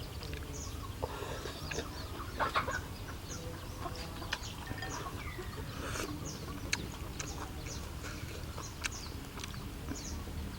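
Chickens clucking, with many short high chirps scattered through and a few sharp clicks.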